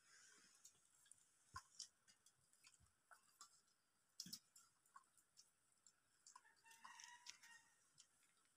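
Near silence: faint scattered clicks of fingers mixing rice on steel plates as people eat by hand, with a faint chicken clucking about seven seconds in.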